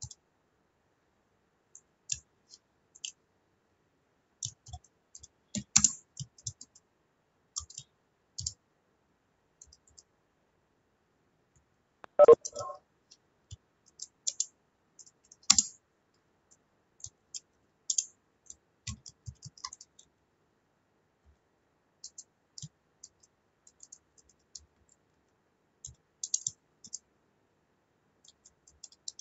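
Computer keyboard typing: irregular clusters of short keystroke clicks with pauses between them. A brief, louder and lower sound about twelve seconds in.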